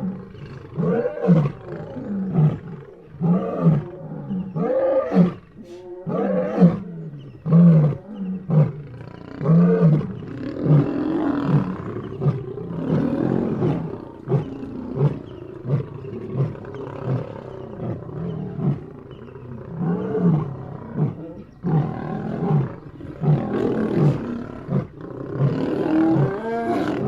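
Lions roaring: a run of short, pitched grunting calls about one a second, then denser, overlapping calls from about ten seconds in.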